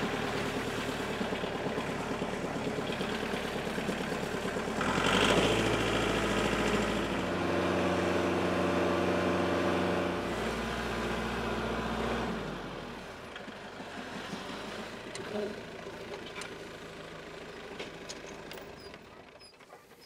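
Kubota tractor's diesel engine running. About five seconds in the engine speeds up and holds there until about twelve seconds, then drops back and fades toward the end.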